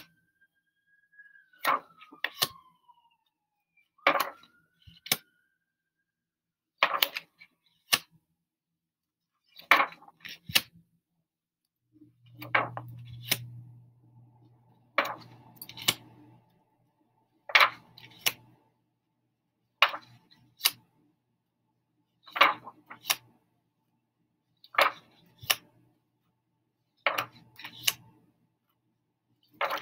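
Stiff letter flashcards being handled and flipped one at a time: a pair of sharp clicks about every two and a half to three seconds as each card is moved from the front of the stack to the back.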